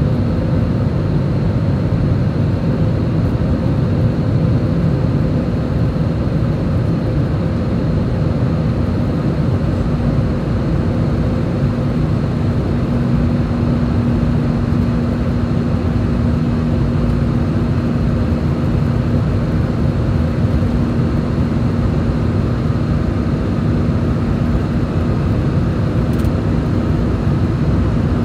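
Airbus A320 cabin noise in flight after takeoff, heard from a window seat over the wing: the engines and airflow make a steady roar with a constant low hum running through it.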